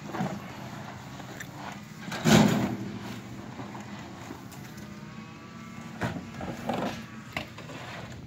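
Mulch being forked out of a pickup truck bed onto a pile: tools scraping in the bed and mulch landing, with one louder burst about two seconds in and a few sharp knocks near the end.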